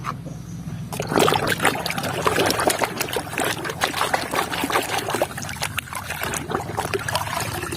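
Water trickling and splashing as a toy vehicle is washed, with many small knocks and clatters of handling starting about a second in.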